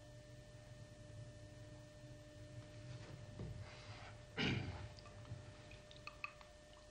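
A heavy exhale about halfway through, over a faint steady hum, followed near the end by a few light clinks of a paintbrush against a paint pot.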